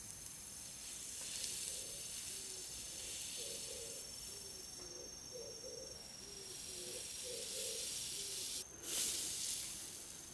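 A scallop cooking in its own shell with melting butter over a charcoal shichirin, the butter and juices sizzling. The hiss swells and fades and gets louder near the end.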